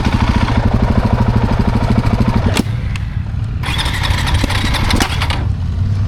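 KTM 690 single-cylinder engine turning over on its electric starter in repeated attempts without catching, with a brief break about two and a half seconds in and another near the end. The engine won't start after stalling, which the owner puts down to flooding and probably to almost zero intake valve clearance.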